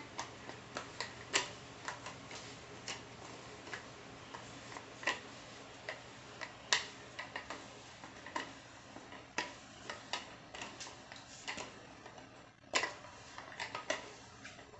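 Rolling pin clicking and knocking as dough is rolled out on a counter: irregular sharp clicks, roughly one or two a second, some louder than others.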